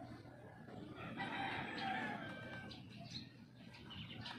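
A faint, drawn-out bird call about a second in, over low background noise.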